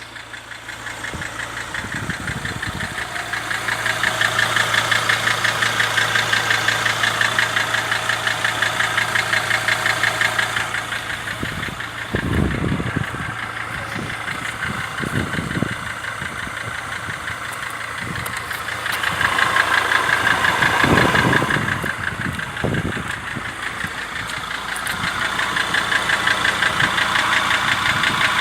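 Mercedes 2.7 CDI five-cylinder diesel (OM612) running with a fast, even knocking, swelling louder twice. The knock comes from an engine given new rings and bearings and honed cylinders, two of which had been scored.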